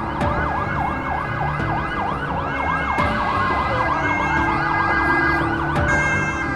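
Several emergency-vehicle sirens sounding at once over a low rumble: one sweeps quickly up and down a couple of times a second while another slowly falls in pitch.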